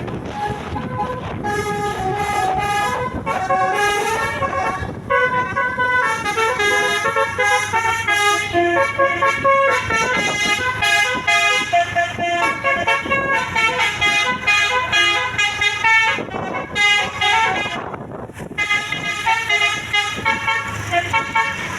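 Basuri 'telolet' multi-tone bus horn playing a quick tune of short stepped notes over and over, briefly stopping about eighteen seconds in.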